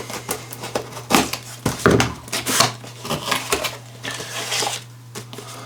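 Parcel packaging being pulled open and handled, a run of irregular crinkles, rustles and scrapes that eases off near the end.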